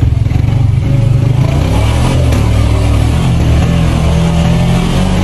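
Off-road buggy's engine running as the buggy drives, a loud, steady low drone.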